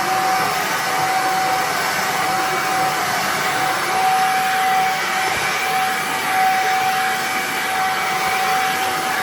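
Cecotec Conga Duostick Easy stick vacuum cleaner, 800-watt motor, running steadily under suction. It gives an even rush of air with one steady whining tone over it.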